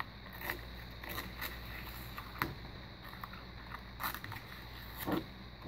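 Blue painter's tape being folded over the edge of a 3D printer build plate and pressed down by hand: a few scattered soft crinkles and taps over a steady low hum.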